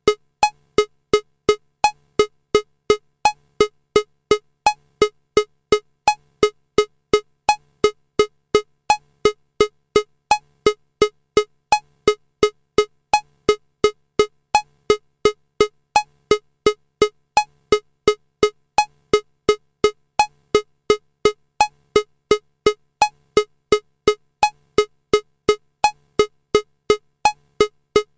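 Metronome clicking steadily at 170 beats per minute, almost three short clicks a second, in 4/4 time: every fourth click, the first beat of each bar, has an extra higher-pitched accent.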